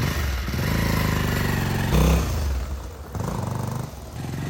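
An engine running with a rapid, even firing pulse, its speed rising and falling. It gets louder about two seconds in and eases off around three seconds.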